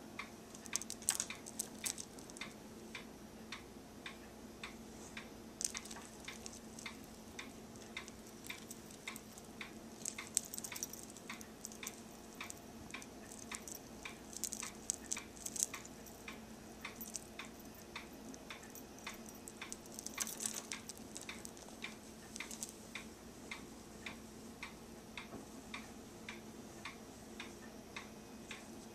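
A clock ticking steadily, about two ticks a second, over a faint steady hum. Now and then come brief clusters of small, bright clicks and rattles from beads and charms on wig braids being handled.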